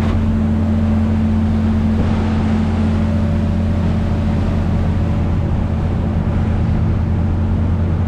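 Trawler yacht's diesel engine running steadily underway, a constant low drone, with the rushing of water and wind over it.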